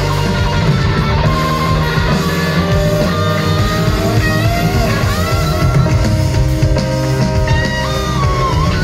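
Live rock band playing an instrumental passage: guitars, keyboards and drums at a steady loud level, with a lead line sliding up and down in pitch over the top.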